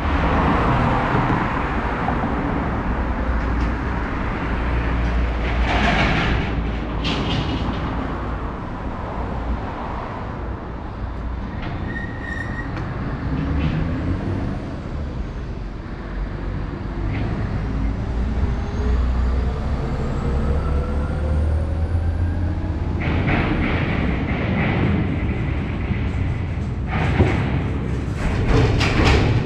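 City road traffic noise with a steady low rumble, and midway a vehicle's rising whine as it speeds up. Near the end come bursts of knocks and rattles.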